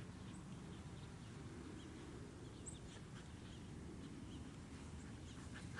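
Faint outdoor background: a steady low rumble with scattered brief high chirps.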